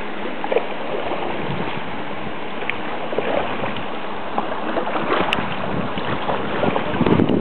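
Steady rush of water in a canal lock chamber around a kayak, with a few small splashes and knocks against the hull; the splashing grows busier near the end.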